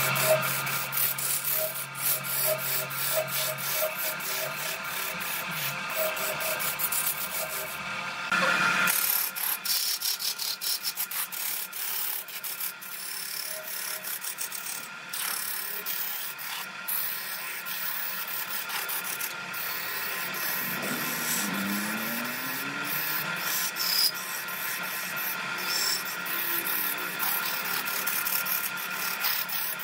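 A turning gouge cutting into a spinning wooden vase blank on a lathe: a continuous rough scraping peppered with rapid fine clicks as shavings tear off.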